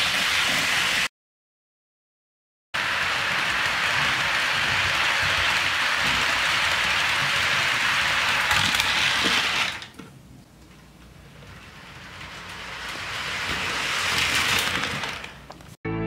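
HO scale model freight train rolling past close by, a steady hiss and clatter of metal wheels on the rails with a few clicks at the rail joints. The sound cuts out for about a second and a half early on, drops away about ten seconds in, and then builds again as cars come near.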